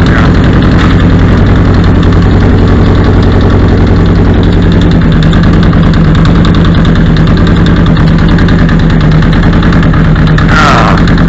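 1979 Honda CB750's air-cooled four-cylinder, four-carburettor engine running steadily at idle just after a cold start, its firing pulses fast and even.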